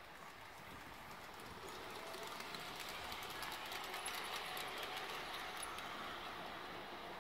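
Large-scale garden railway train, a model electric locomotive hauling freight wagons, running past. Its motor whirs and its wheels give off a rapid light clicking on the track. It grows louder toward the middle, as it passes closest, then fades.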